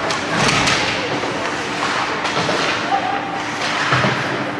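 Ice hockey game in a rink: scattered knocks and thuds of sticks, puck and boards over a steady low hum, with brief calls of voices.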